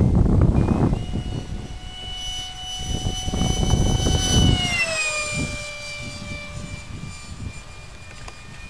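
Electric ducted-fan model jet (EDF-6904 fan on a Mega brushless motor) passing overhead: a steady high whine that drops in pitch about five seconds in as it goes by, then fades away. Wind buffets the microphone with a low rumble in the first second.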